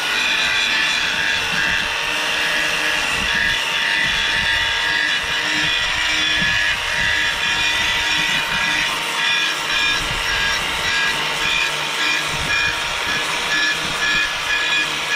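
Electric power sander running at a steady whine and grinding against the rusty mouldboard of a Ferguson potato ridger, stripping rust and old paint.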